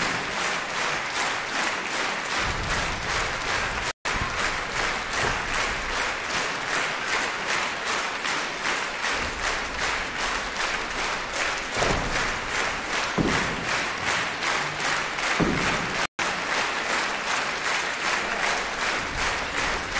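Large theatre audience applauding, clapping together in a steady rhythm. The sound cuts out briefly twice.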